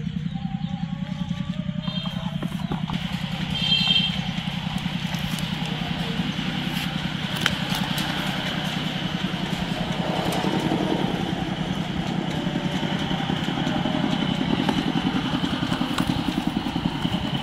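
A small engine running steadily at an even pulse, with faint voices in the background.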